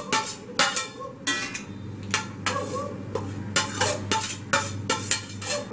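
A cooking utensil scraping and knocking against the pan in repeated short strokes, about two a second, as egg fried rice is stirred and mixed with added carrot, capsicum and egg.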